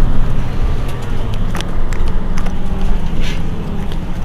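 Mercedes-Benz Citaro C2 city bus's OM936 six-cylinder diesel idling while the bus stands at a stop, a steady low drone, with a few short clicks over it.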